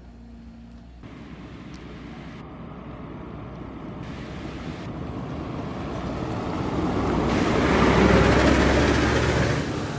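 A vehicle drives closer and past, its noise swelling until it is loudest about eight seconds in, then easing off near the end.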